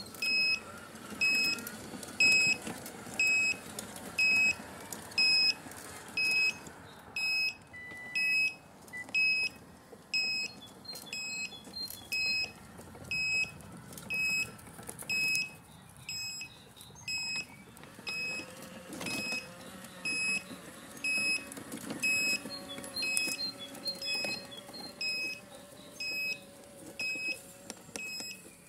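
Electronic beeper sounding a short high-pitched beep about once every 0.8 seconds, steady throughout, over a faint mechanical hum and rattle.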